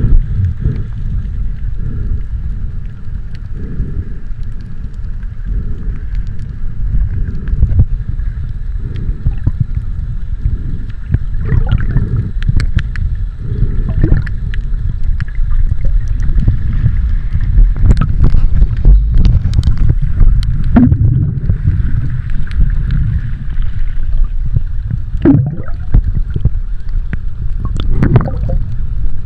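Muffled water sloshing and gurgling under a heavy, steady low rumble, with scattered short splashy sounds.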